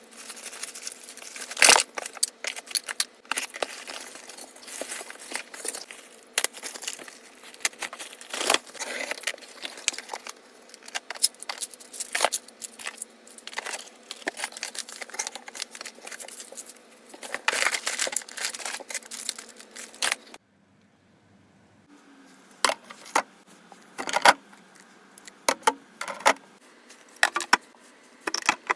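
Packaging being handled: crinkling and rustling with many sharp clicks and taps. It stops abruptly about two-thirds of the way through, followed by a short lull and then scattered clicks and taps.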